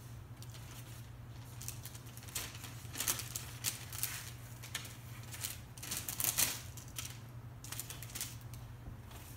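A scraper drawn in short strokes along the edge of a resin-coated panel, wiping off dripping epoxy: a run of scratchy strokes, the loudest about three and six seconds in. A steady low hum runs underneath.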